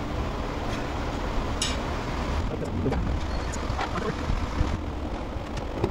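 Steady low rumble of background noise with a few faint, short clicks scattered through it, the clearest about a second and a half in.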